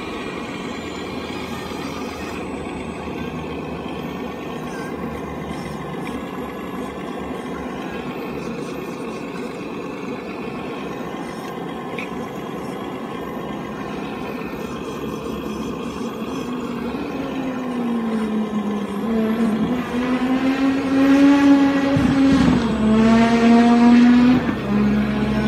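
Radio-controlled hydraulic excavator's electric hydraulic pump whining steadily as the boom and bucket dig. In the last several seconds it grows louder, its pitch sagging and recovering twice as the pump comes under load.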